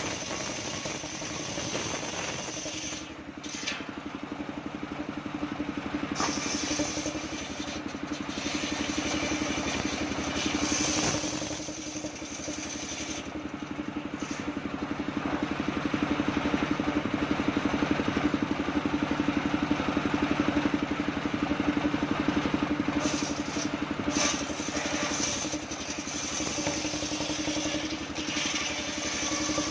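Engine-driven homemade circular sawbench running steadily while its blade rips coconut-palm wood. The sawing noise rises and falls as the timber is fed through, loudest about halfway through.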